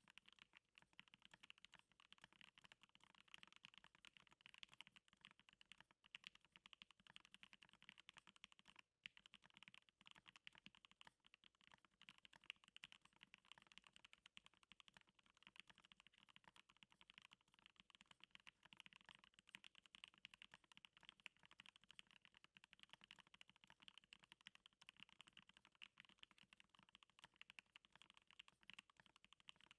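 Continuous fast typing on a Stacked1800 mechanical keyboard, a case of stacked acrylic layers fitted with Gateron Hippo switches and NicePBT PBT keycaps. It is a dense run of rapid keystroke clicks with a brief pause about nine seconds in.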